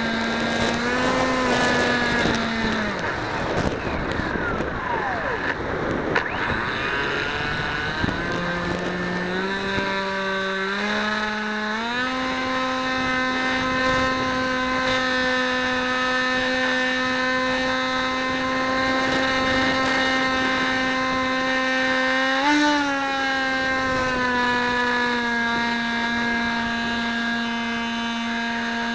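Motor and propeller of a radio-controlled aircraft heard from its onboard camera: a steady whining tone with a rush of air in the first few seconds, climbing in steps to a higher pitch about ten seconds in, then holding, with a brief blip and a small drop in pitch near the end.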